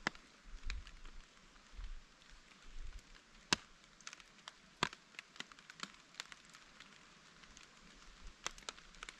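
Rain on a tarp: scattered, irregular taps of drops hitting the tarp over a faint hiss of rain, with a few sharper hits about three and a half and five seconds in and again near the end.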